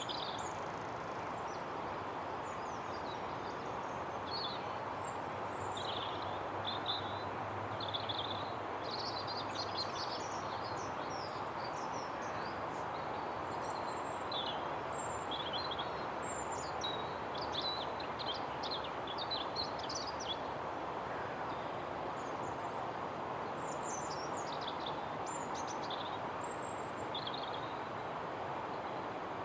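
Small birds chirping and singing over a steady rushing background noise.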